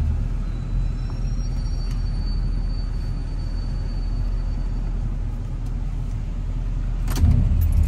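Dual-rear-wheel pickup truck creeping forward at low speed, its engine and tyres a steady low rumble inside the cab. A sharp knock comes near the end.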